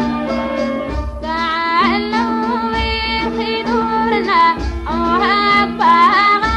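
Sudanese song: a woman singing an ornamented melody with sliding, wavering notes over instrumental accompaniment. The melodic line enters about a second in and pauses briefly near the middle.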